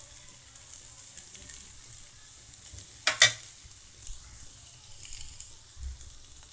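Stir-fried cabbage sizzling softly in a hot pan: a steady faint hiss with small crackles. A single sharp clack sounds about three seconds in.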